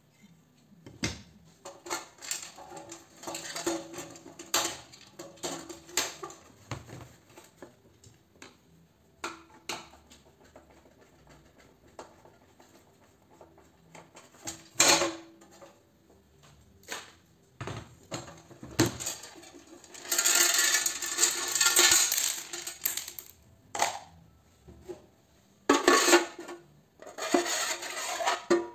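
Clicks, knocks and metallic clattering from light fittings being taken apart by hand and with a screwdriver: plastic covers and an aluminium lamp housing handled and knocked about. There is a longer spell of rattling and scraping about two-thirds of the way through and another near the end.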